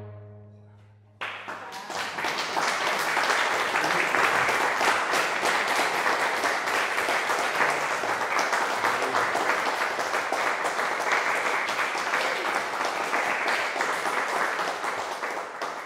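The last chord of a string quartet dies away, its low cello note fading. About a second in, a small audience breaks into applause, clapping steadily and tapering off near the end.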